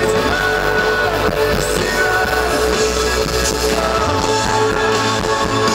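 Rock band playing live, with guitar and a sung vocal line.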